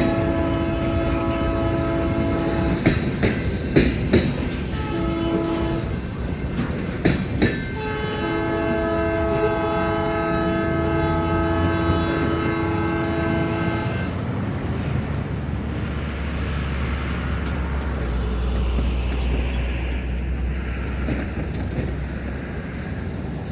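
Canadian Pacific GP38-2 diesel locomotive's multi-chime air horn blowing a long blast, a short one, then a long held blast, the end of a grade-crossing signal. After the horn stops, the freight train rolls by with a low diesel rumble and wheels clicking over the rails.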